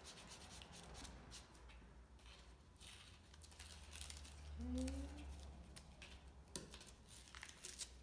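Felt-tip marker scratching on cardboard in quick, short colouring strokes, faint. A short rising tone comes a little before the middle, and a sharper click about two-thirds of the way through.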